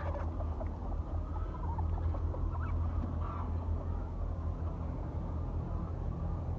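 A flock of brown laying hens making soft clucks and short squeaky calls, a few at a time, over a steady low hum.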